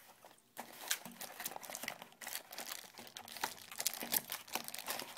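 Thin plastic bag (LDPE) crinkling and crackling irregularly as a handheld GPS receiver in it is handled and pulled from its cardboard box insert, starting about half a second in.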